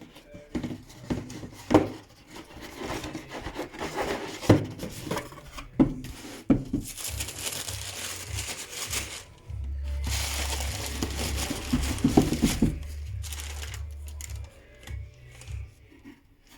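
Packaging being handled: paper crinkling and tearing, with several sharp knocks of the box and boots being moved about.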